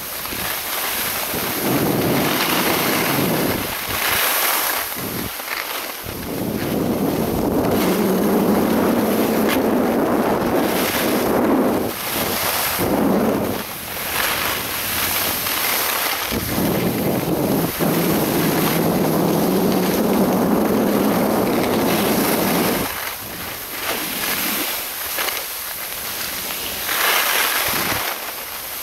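Loud wind buffeting on an action camera's microphone while skiing downhill, swelling into two long gusts and dropping back between them.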